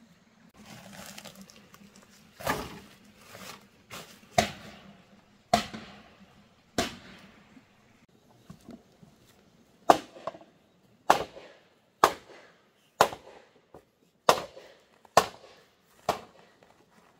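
A hoe chopping into soil, a string of sharp strikes at about one a second.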